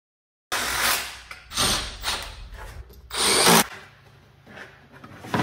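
Handheld power tool run in four short bursts, the last and loudest about three seconds in, then quieter knocks and rustles of the plastic underbody panel being handled.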